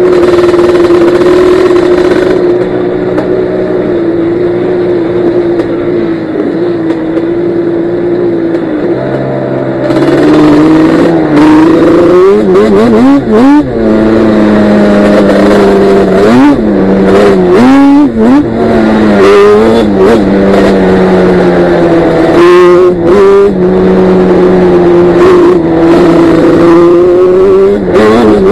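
Yamaha Banshee's twin-cylinder two-stroke engine heard from the quad being ridden. It runs steadily at first, then from about ten seconds in it revs up and down repeatedly as the throttle is opened and shut, with brief knocks mixed in.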